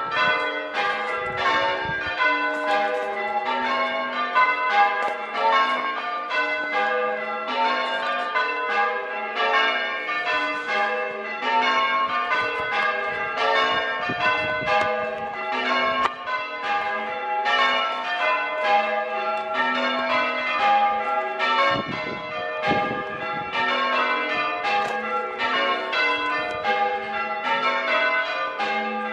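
Six church bells, the tenor about 8¾ cwt and tuned to G, being rung in changes, heard from outside the tower: a steady, unbroken stream of struck bell notes in even rhythm.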